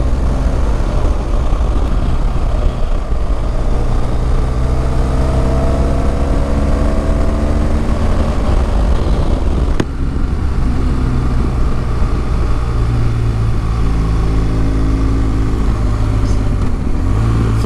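BMW R1200GS Adventure's boxer-twin engine under way, its note rising as the bike accelerates, with a short break near the middle like a gear change before it climbs again. Wind rush on the helmet-mounted microphone runs under the engine.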